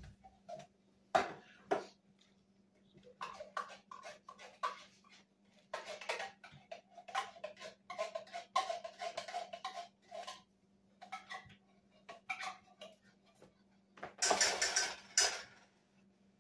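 Kitchen clatter: a metal spoon clinking, knocking and scraping against tin cans and a cooking pot as canned condensed soup is spooned into the pot, with a louder stretch of scraping near the end.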